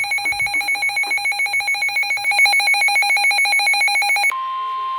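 A weather radio receiver's electronic alert alarm trilling in rapid pulses. About four seconds in it cuts off, and a steady high tone starts in its place: the NOAA Weather Radio 1050 Hz warning alert tone that announces an incoming warning.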